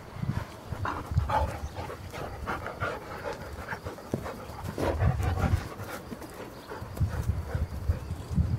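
Two dogs play-fighting, one of them a Belgian sheepdog: panting and short rough vocal noises, on and off.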